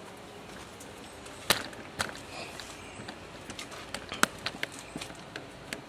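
Footsteps and handling noise: a few sharp knocks and clicks, the loudest about one and a half seconds in, then a run of lighter irregular ticks.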